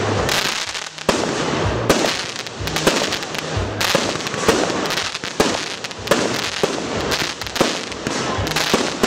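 Fireworks display: aerial shells bursting in quick succession, a steady run of bangs and crackling with no pause.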